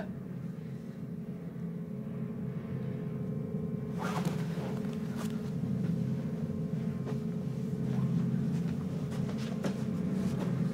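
A low steady drone that slowly swells louder, with faint rustling and shuffling steps from about four seconds in as people get up off the armchair and walk away.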